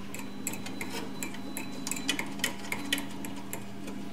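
Small irregular metallic clicks and taps, a dozen or so, from fingers handling the Gaggia Classic's steam wand tube and lock nut against the brass steam valve fitting. A low steady hum runs underneath.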